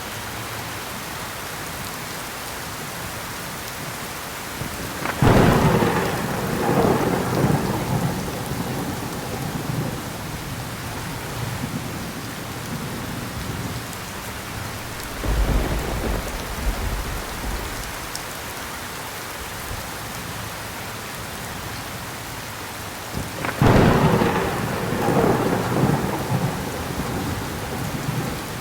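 Heavy rain falling steadily, with three thunderclaps: a sudden crack about five seconds in that rolls into a rumble lasting several seconds, a deeper, lower rumble about halfway through, and another crack with a rolling rumble near the end.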